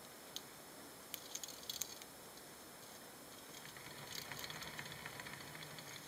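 Roborovski dwarf hamsters scurrying over sand and scattered seed husks: faint scattered light ticks and clicks, then a denser run of scratchy pattering in the second half.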